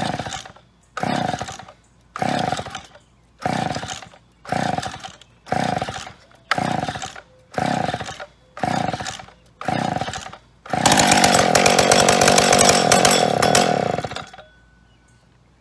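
McCulloch Pro Mac 605 58cc two-stroke chainsaw being pull-started: about ten quick tugs on the recoil starter, about one a second, each a short rasping whir. Near the end the engine catches and runs loudly for about three and a half seconds, then cuts out. It is the first fire of an old saw brought back from sitting.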